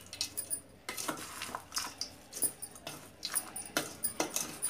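Metal spoon stirring dry, crisp bhel mix of chivda and sev in a stainless steel bowl: irregular scrapes and clinks of spoon on steel with the rustle of the mix.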